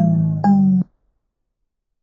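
Phone ringtone playing a marimba-like melody of struck notes, a new note about every half second, that cuts off suddenly just under a second in.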